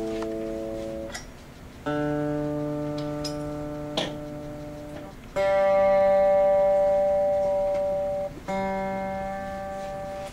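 Guitar strings plucked one note at a time while the guitar is being tuned. New notes come in about every three seconds and each rings out and slowly fades. There is a short click about four seconds in.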